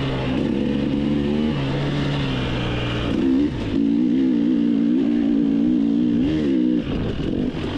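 KTM 300 two-stroke dirt bike engine running under throttle on a dirt-trail climb. Its pitch dips and rises with the throttle around the middle and again near the end.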